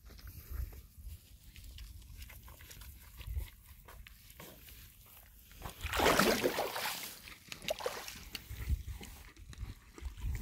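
A horse moving at the edge of a rain puddle, with soft low thuds, and about six seconds in one loud rushing burst lasting about a second.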